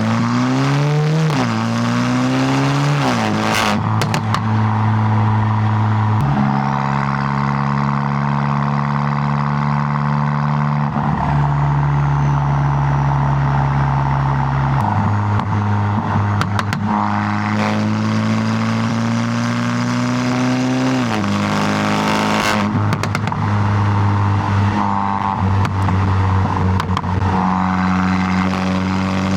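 Volkswagen MK8 GTI's turbocharged 2.0-litre four-cylinder heard through a Milltek downpipe and cat-back exhaust while driving. It pulls hard, rising in pitch and dropping sharply at two quick upshifts in the first few seconds, then cruises with a steady drone, shifting pitch several times and climbing again before another drop about two-thirds of the way through. A few brief sharp clicks come around the shifts.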